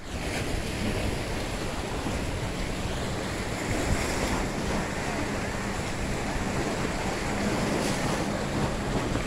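Wind buffeting the microphone over small waves lapping against jetty rocks, with the faint steady drone of a jet ski engine out on the water.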